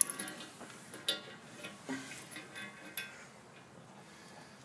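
A few sharp metal clinks and taps, about one a second, some with a short ring, from steel mounting hardware being handled and fitted while a light bar is bolted to a winch plate.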